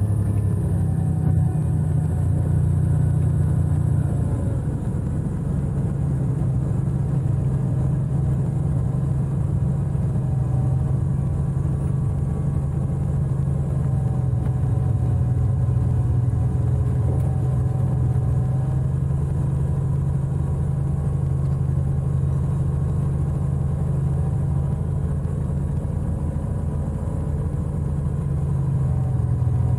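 Cessna P210's turbocharged six-cylinder piston engine running steadily at low taxi power, heard from inside the cockpit as an even, low drone.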